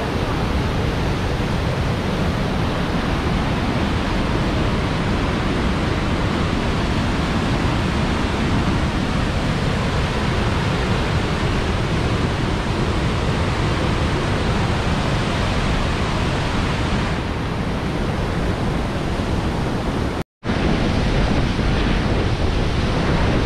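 Steady, loud rush of a large waterfall and its cascading creek, an even wash of water noise with no pauses; it cuts out for a split second about twenty seconds in and then carries straight on.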